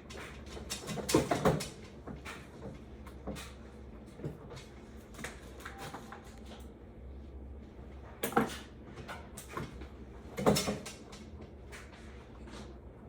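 Scattered clunks and knocks of printer parts being handled and fitted together during assembly, loudest a little past a second in, about eight seconds in and about ten and a half seconds in, over a steady low hum.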